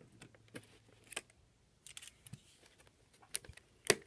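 Scissors snipping at the plastic shrink wrap on a VHS tape case: scattered short, sharp snips and clicks, the loudest few near the end.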